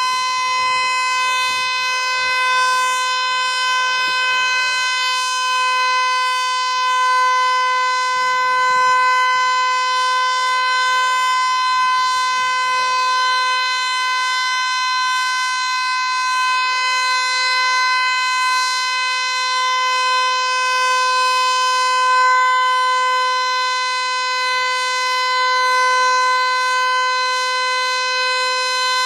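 Federal Signal Eclipse 8 electronic outdoor warning siren sounding one steady, unwavering tone during a siren test, very loud, with slow gentle swells in loudness.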